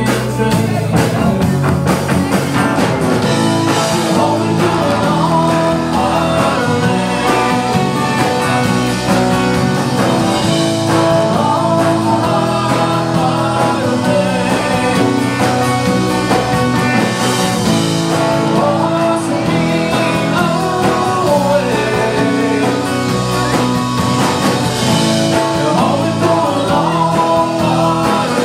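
A live rock band plays a song, with a male voice singing over acoustic guitar, electric guitar, bass and drums.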